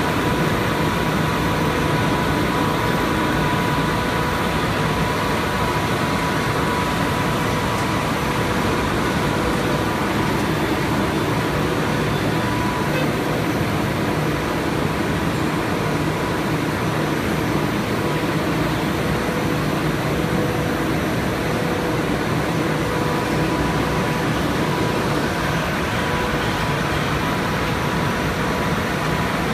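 Plastic film blowing machine running: steady machine noise with a constant high whine and a low hum.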